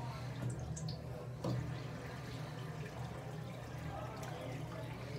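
Flushometer valve flushing a 1974 Kohler Bardon urinal: steady rushing water with a low hum as it washes down the bowl, and a single knock about a second and a half in.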